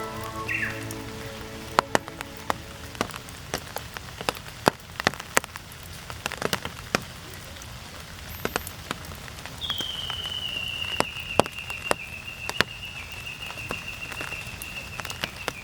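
Steady rain with many sharp individual drips landing close by. About ten seconds in, a long, high, steady whistle-like tone comes in, dips slightly in pitch, then holds.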